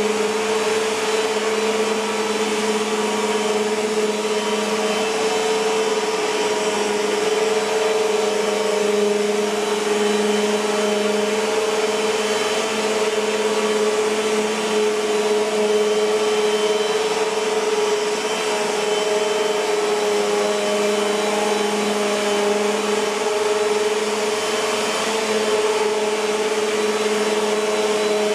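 Bissell PowerForce Compact (2112) bagless upright vacuum cleaner running steadily: a constant motor hum over a rush of air, with no change in speed.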